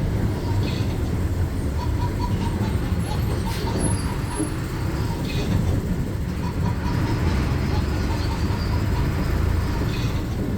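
Inside a city bus: a steady low engine and road rumble, with a few short rattles from the bus body and fittings.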